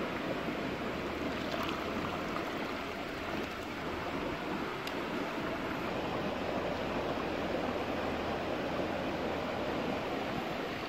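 Steady rushing of running water from a small stream.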